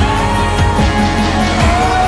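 Background music: a held melody line over low drum hits.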